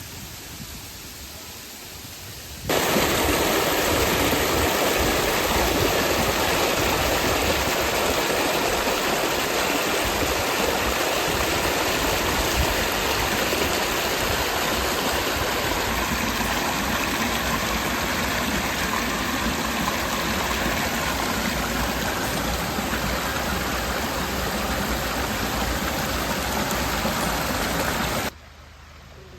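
Water of the Uracher Wasserfall rushing down, a steady even noise. It turns abruptly much louder about three seconds in and drops back abruptly near the end.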